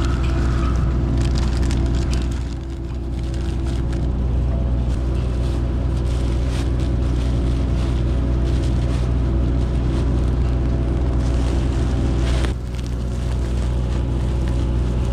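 A hydroseeder's engine running steadily at constant speed while the slurry is mixed in the tank. The level dips briefly about two and a half seconds in and again near the end.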